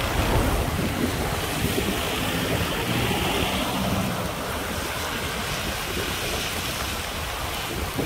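Wind buffeting the microphone of a moving bicycle, with tyre hiss on a wet road. A car passes on the wet tarmac about halfway through, its tyre spray briefly louder.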